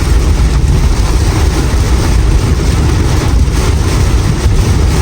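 Heavy rain pouring down in a storm: a loud, steady rush with a deep rumble underneath.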